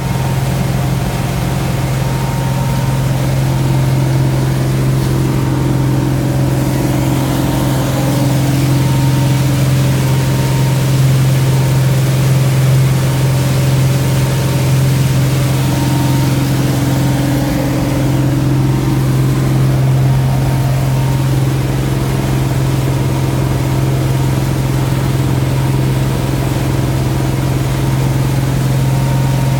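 Whittley cabin boat's engine running steadily at cruising speed of about 20 knots, a constant low drone, with wind and water rushing past the hull.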